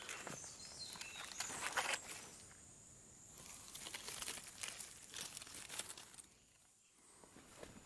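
Faint rustling and crinkling with scattered short clicks, busiest in the first two seconds, then dying down to near quiet before picking up slightly near the end.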